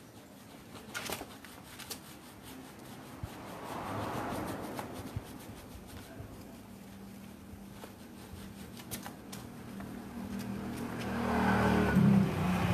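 A motor vehicle's engine, a steady low hum that grows louder and is loudest near the end, after a briefer swell of noise about four seconds in.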